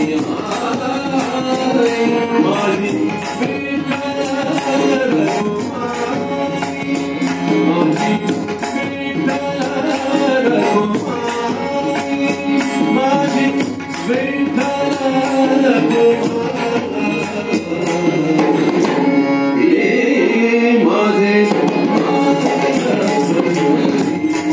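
Marathi devotional abhang sung by a male voice, accompanied by harmonium, tabla and pakhawaj, with continuous rhythmic drumming.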